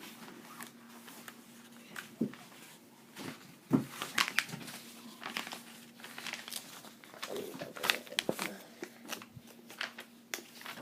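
Paper rustling and crinkling as a notebook's pages are handled and leafed through, with scattered taps and a sharper knock a few seconds in.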